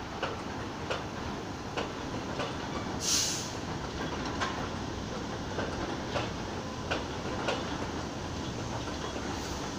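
New York City Subway train rolling past on elevated track: a steady rumble with a wheel click roughly every two-thirds of a second as the wheels cross rail joints. A short hiss comes about three seconds in.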